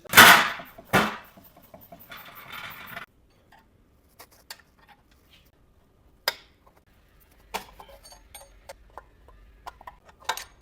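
Metal clanks and clicks of tools and brake parts being handled while a new brake backing plate is fitted. There are two loud clanks right at the start and a short rasping sound about two seconds in, then scattered light clicks and knocks.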